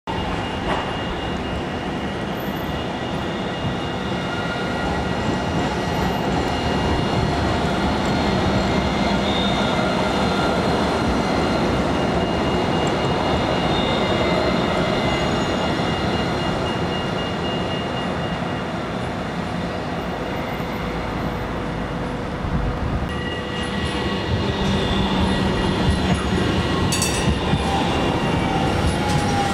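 Alstom Citadis low-floor electric trams running past on grass-covered track: a steady rolling rumble with a thin electric whine. It swells as a tram passes about halfway through and again near the end, where the whine falls in pitch.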